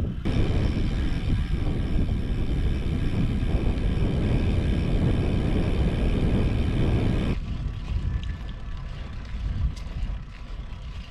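Wind rumbling over the action camera's microphone as the road bike rolls along at speed, with a steady high whine over the rumble. The whine and the heaviest rumble cut off abruptly about seven seconds in, leaving lighter wind and road noise.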